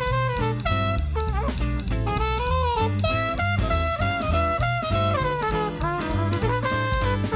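Traditional New Orleans jazz band playing an instrumental passage: a horn carries a melody with bent, sliding notes over a walking bass line and a drum kit keeping time.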